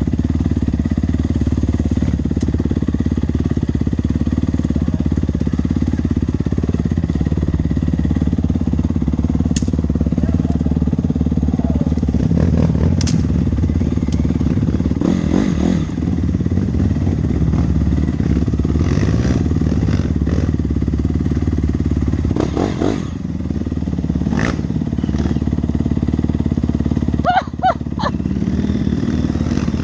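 Dirt bike engine running steadily under way, with scattered short knocks and clatter from the ride.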